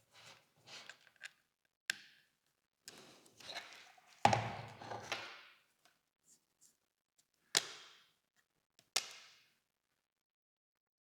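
Camera body and small parts being handled and set down on a work surface during reassembly: soft rustling, a few sharp clicks, and one louder knock about four seconds in.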